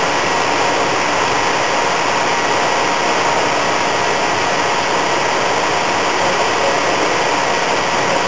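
Steady, loud rushing machinery noise with faint high whining tones, like large fans or blowers running.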